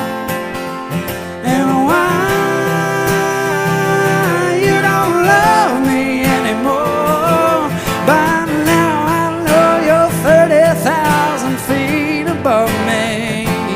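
Live country song: a steel-string acoustic guitar strumming under a man's voice holding and bending a drawn-out melody line.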